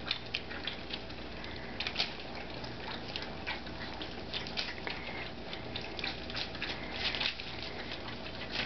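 Several Old English Sheepdog puppies eating soft puppy mush from one pan: a continuous irregular run of wet smacking, lapping and chewing clicks.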